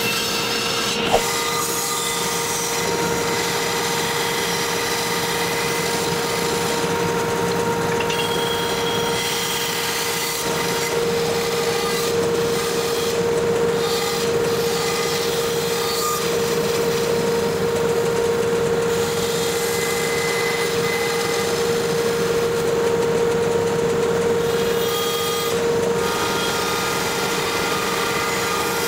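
Bandsaw running and cutting wood, the noise of the blade in the wood over a steady motor hum. There is one sharp click about a second in.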